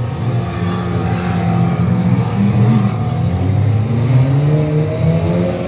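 Several stock car engines racing together, revving and easing off as the pack takes a bend, their pitches rising and falling over one another.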